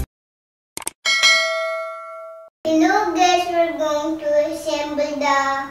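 A click and a notification-bell ding, the kind of sound effect used with a subscribe-button animation, ringing and fading over about a second and a half. Then a young girl sings.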